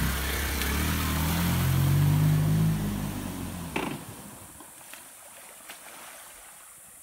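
Small step-through motorcycle engine running as it ploughs through river water with splashing, then cutting out abruptly with a short sharp sound about four seconds in: the engine stalls from water intake (hydraulic shock). Only faint water noise remains afterwards.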